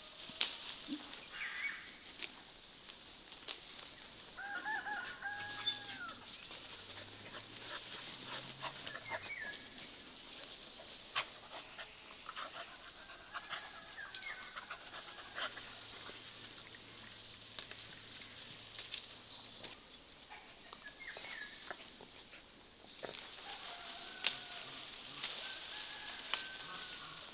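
Chickens clucking and calling now and then, short pitched calls spread over several seconds, with scattered sharp clicks and knocks between them.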